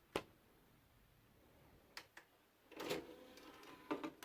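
Faint plastic clicks and clatter of a DVD case and disc being handled: a sharp click just after the start, two light ticks about two seconds in, a short rattling clatter around three seconds, and another click near the end.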